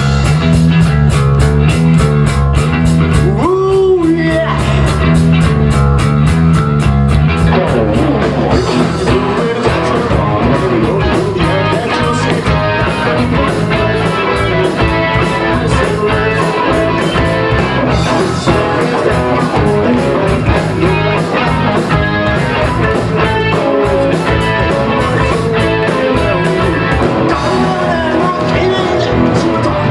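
Rock band playing loud live: electric guitar and bass over a fast, steady beat, with a bending guitar note about four seconds in.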